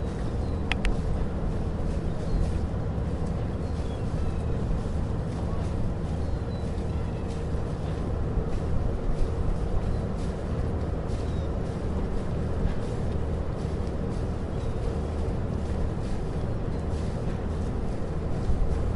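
Steady low mechanical rumble of a running vehicle, with a constant hum and an even noise over it, and faint short high chirps now and then.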